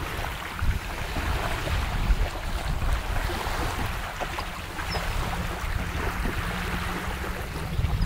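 Small waves washing onto a sandy shore, with wind buffeting the microphone in a steady low rumble.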